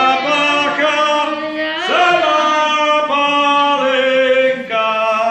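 Voices singing a slow, drawn-out dirge in long held notes, a mock funeral chant for the 'burying of the bass' carnival custom.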